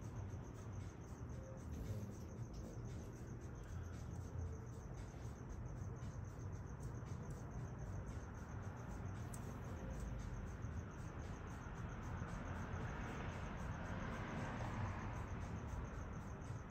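Steady outdoor background noise: a low rumble under a faint, even, high-pitched chirring, with a broad rush of noise swelling and fading near the end.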